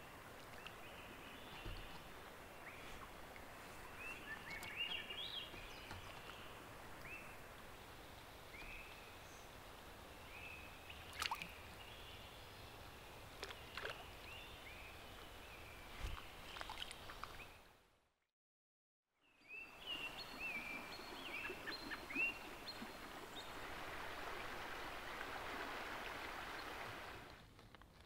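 Faint river ambience: steady flowing-water hiss with small birds giving short chirps every second or so, and a few sharp clicks. The sound fades out briefly about two-thirds of the way through, then returns with the water louder.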